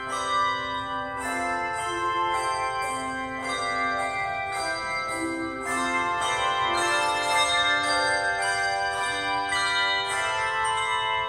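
Handbell choir playing a piece: many bell notes struck in quick succession, each ringing on and overlapping the next into chords.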